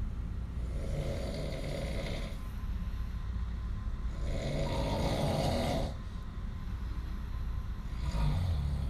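Snoring: two long snores about four seconds apart, with a weaker one near the end, over a steady low rumble.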